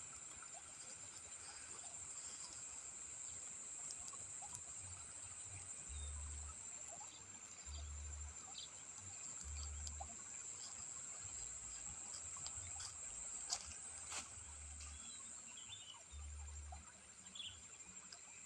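Steady high-pitched chirring of insects in the rice fields, with scattered faint crackles from a small burning straw-and-grass fire and occasional low rumbles.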